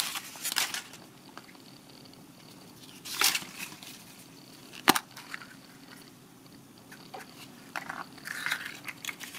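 Hands opening a toy surprise egg: scattered rustles and crinkles of its wrapper, with one sharp plastic click about five seconds in.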